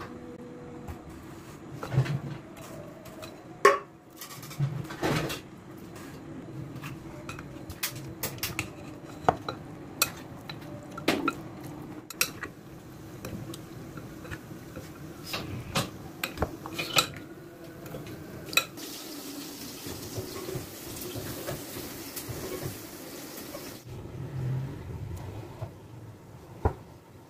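Metal spoon clinking and scraping against a glass bowl while mutton chops are turned over in a thick marinade, in irregular clinks, with a faint steady hum underneath.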